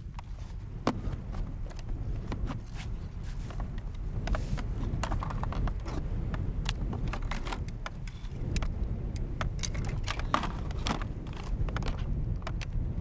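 Low wind rumble on the microphone, with scattered sharp clicks and knocks.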